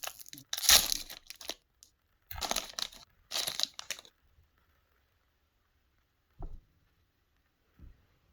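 Foil trading-card pack being torn open and crinkled, in several short crackly bursts, then two soft knocks near the end.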